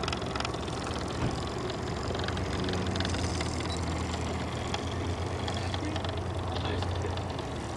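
Midwest Heritage single-cylinder oscillating steam engine of a model steamboat running steadily under way, a rapid even chuffing with a low steady hum.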